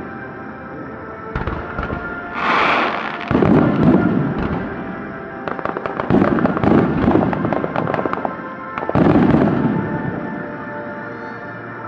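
Fireworks display in a rapid barrage: a string of deep booms a few seconds apart as shells burst, with dense crackling and whooshes between them.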